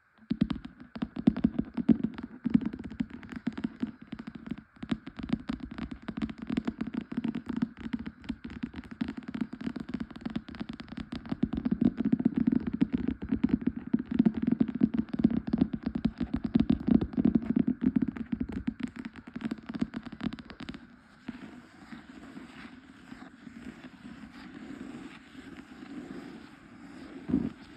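Fast tapping and scratching on books, a dense run of quick taps. About 21 seconds in it turns softer and quieter.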